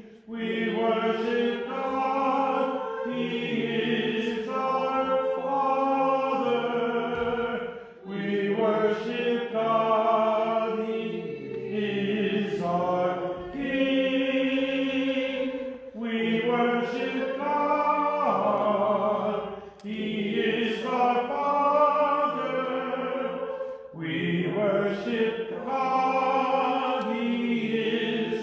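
Several voices singing Eastern Christian liturgical chant of a moleben in harmony, unaccompanied, in phrases of about four seconds with a short break between each.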